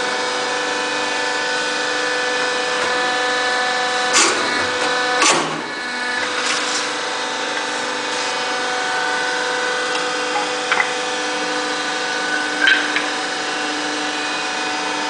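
Hydraulic press for splitting and stamping paving stones, running with a steady mechanical hum. Two sharp knocks come about four and five seconds in, and lighter clicks follow later.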